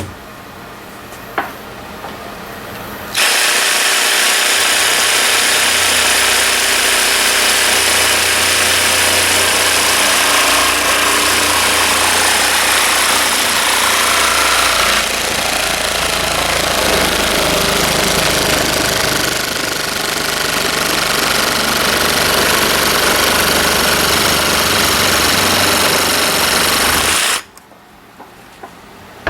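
Electric jigsaw cutting through wood, starting abruptly about three seconds in, running loud and steady, and stopping abruptly about two seconds before the end.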